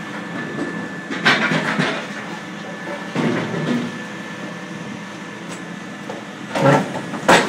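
Hydraulic stone-splitting press at work on sandstone: steady machine noise with a few irregular clunks and cracks as the tungsten chisels split the stone, ending in a sharp crack near the end.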